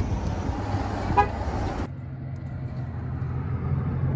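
A pickup truck's horn gives one short chirp about a second in, the lock-confirmation chirp as the truck is locked with the key fob. A steady low hum runs underneath throughout.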